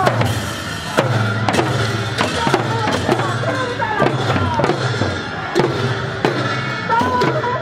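Procession music: large frame drums and brass hand cymbals struck in a steady beat about twice a second, with voices singing over them.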